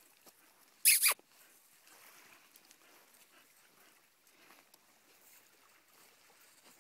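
A dog's short, sharp, high-pitched double yelp about a second in, over a faint steady background.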